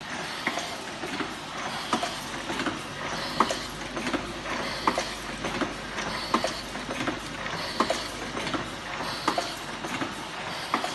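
Fully automatic nail polish filling and capping machine running, its mechanism clacking in a steady cycle about every three-quarters of a second, with a short hiss about every second and a half.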